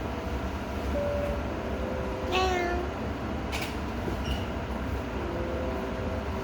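A domestic cat meowing once, a short call bending in pitch about two and a half seconds in, over a steady low hum.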